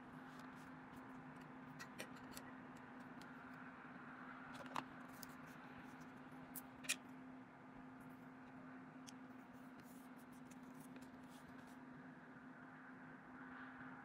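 Near silence: room tone with a steady low hum and a few faint short clicks, about two, five and seven seconds in.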